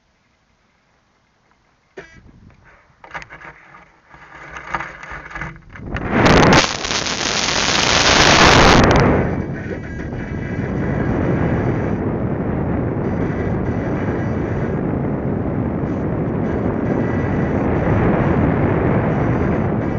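After about two seconds of near silence, an F3K discus-launch glider is handled with irregular knocks and rustles. About six seconds in comes a loud rush of air lasting about three seconds as it is discus-launched. It then settles into steady wind noise over the microphone as the glider flies.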